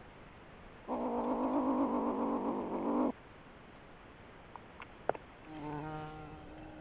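A pine marten's call: a buzzing, fluttering growl lasting about two seconds that starts and stops abruptly. A few sharp clicks and a softer pitched call follow near the end.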